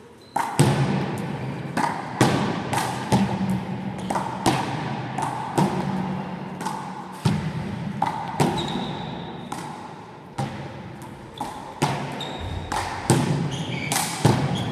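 One-wall handball rally: the small rubber ball is struck by hand and hits the wall and the gym floor in a quick, irregular run of sharp, echoing smacks, with a few short high squeaks of shoes on the floor.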